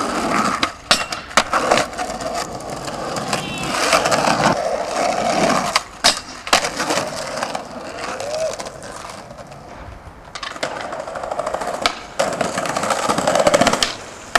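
Skateboard wheels rolling over concrete and paving, broken by sharp wooden clacks of the board being popped and landing, several times.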